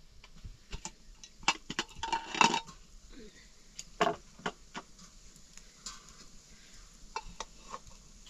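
Metal spoon or ladle clinking and scraping against pots and plates as rice and curry are served, in scattered knocks with the busiest cluster about two seconds in.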